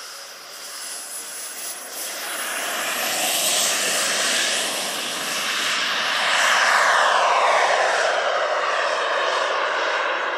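Twin model jet turbines of a large RC Airbus A330-300 running with a whooshing whine. The sound grows louder as the aircraft comes past, then drops in pitch as it passes and climbs away.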